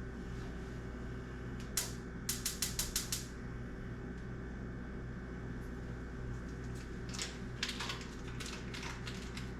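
Kitchen clicks at the stove: a quick run of about seven sharp clicks a little over two seconds in, then scattered clicks near the end, over a steady low hum.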